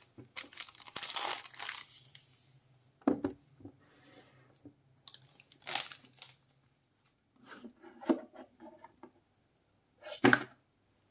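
Cellophane wrap crinkling and tearing as it is pulled off a cardboard watch box, for about two seconds. Then the box is handled on a tabletop: a knock about 3 s in, short rustles and scrapes, and a sharper knock near the end as the box is opened.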